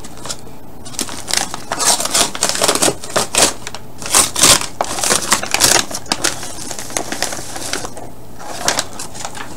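Paper envelope packing and a plastic bag rustling and crinkling in a dense run of irregular crackles as a pack is pulled out of the envelope by hand.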